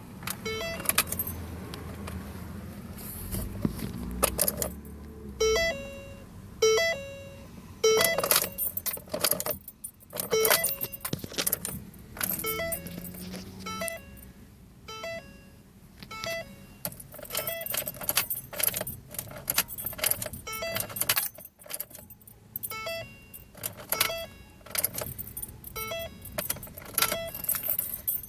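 Car keys jangling and clicking in the ignition of a 2009 Ford Focus as the key is worked over and over, with short beeping tones recurring in between; the car does not start.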